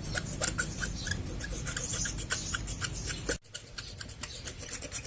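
Super Kama 12 HP single-cylinder diesel's valve being lapped into its seat by hand: a quick gritty back-and-forth rubbing at about four or five strokes a second, with a short break about three and a half seconds in.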